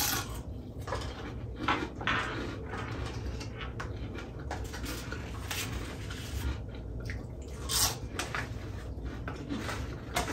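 Close-up eating sounds: wet chewing and mouth smacking, with scattered short sharp clicks.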